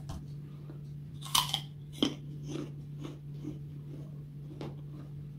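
A crisp green apple slice bitten with a loud crunch about a second and a half in, a second sharp crunch half a second later, then chewed with steady crunching about twice a second. A low steady hum runs underneath.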